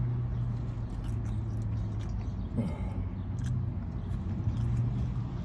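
A person eating: chewing and small mouth and food noises, with a few light clicks and rustles, over a steady low hum.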